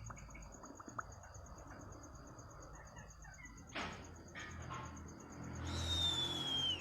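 Night-time ambience: a steady, high insect trill with a few faint chirps and clicks. Near the end a bird sings one long whistle that falls slowly in pitch.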